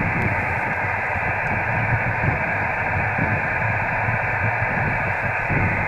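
Steady hiss and static from a ham radio receiver's speaker on the 10 GHz band, with no signal coming through between contacts. It has a faint underlying hum and sounds narrow and muffled, cut off above the voice range like a single-sideband receiver's audio.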